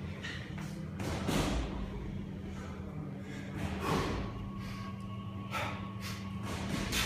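Sharp, forceful breaths from a man hiking and swinging a heavy kettlebell two-handed, the breaths coming quicker near the end as the swings get going.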